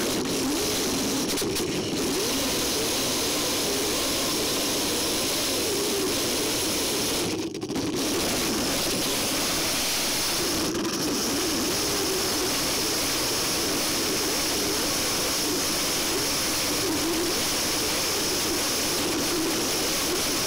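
Electric drive motors and tracks of a 3D-printed tank running. There is a steady mechanical noise with a whine that wavers up and down in pitch, and a brief drop about seven seconds in.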